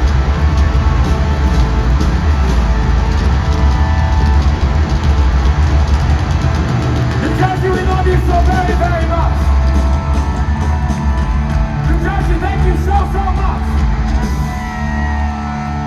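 A live hard rock band playing loud, with heavy distorted guitars, bass and drums filling an arena.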